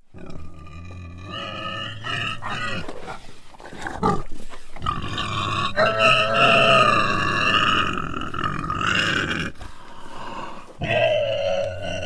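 An animal squealing, starting abruptly. A run of short pitched squeals and grunts comes first, then a long wavering squeal from about five to nine seconds in, and another squeal begins near the end.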